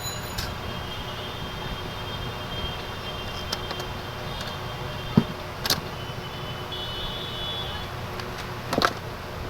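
A few short, sharp clicks and knocks, the loudest about five seconds in and near the end, over a steady low background rumble.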